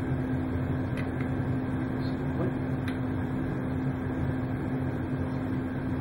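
A steady mechanical hum, with a few faint clicks about a second in and again near three seconds as a readout cable plug is handled.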